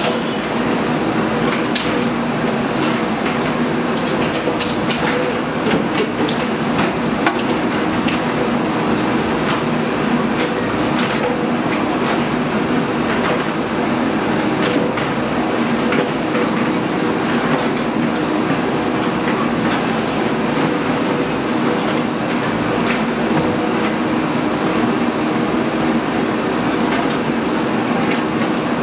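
Diesel engine of a JCB earthmoving machine running steadily under work, with scattered sharp metallic clanks and knocks over it.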